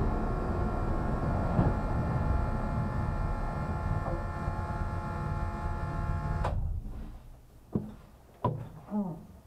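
Race car engine idling steadily, heard from inside the cabin as the car rolls to a stop, then cut off abruptly about six and a half seconds in. Three sharp clicks or knocks follow in the quiet cabin.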